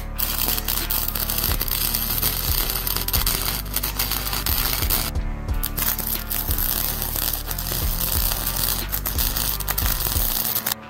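MIG welder arc crackling and sizzling on steel, with spatter popping; the arc breaks off briefly about five seconds in, then strikes again and runs until near the end. Background music with a steady beat plays underneath.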